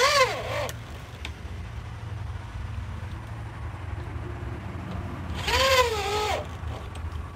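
Corded electric drill boring into a hardwood board: the motor's whine rises and falls with the drilling, with the hiss of the bit cutting, in two bursts, one right at the start and a second about five and a half seconds in. A steady low hum runs between them.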